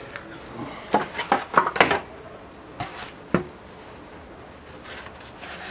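A Honda SH300i's plastic front mudguard being worked free of the fork and handled after its bolts are out: a quick cluster of light knocks and clicks about a second in, then a single sharper knock a little past the middle.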